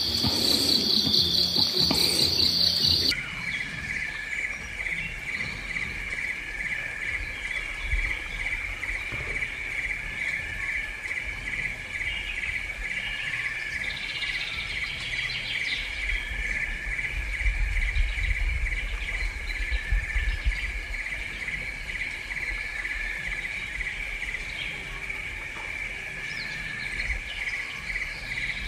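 Insects chirring steadily in a fast, pulsing trill, with a few faint bird chirps. A higher-pitched insect trill in the first three seconds stops abruptly, and some low rumbling comes midway.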